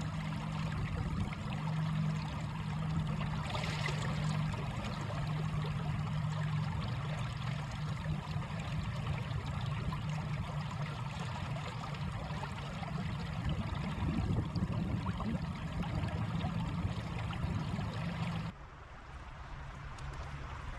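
Shallow stony stream rushing and splashing steadily around wading legs. It drops abruptly to a softer, quieter flow near the end.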